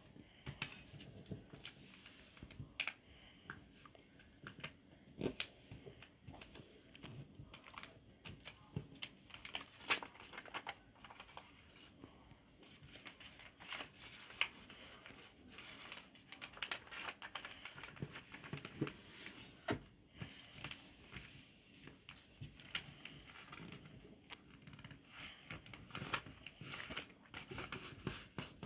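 A sheet of white paper being folded and creased by hand on a wooden table: irregular rustling and crinkling, with scattered sharp taps and clicks as the folds are pressed down.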